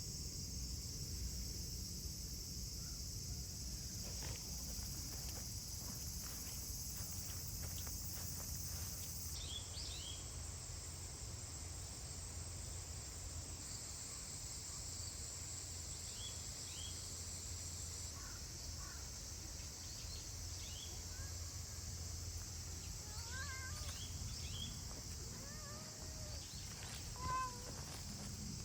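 A steady, high-pitched chorus of insects, its pitch shifting slightly twice, over a low background rumble. Faint short chirping calls come in over it in the second half.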